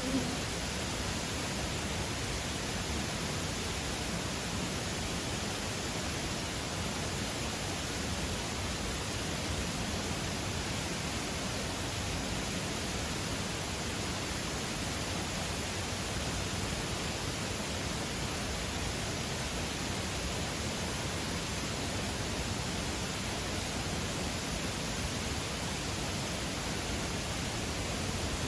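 Waterfall pouring in a steady, unbroken rush of water.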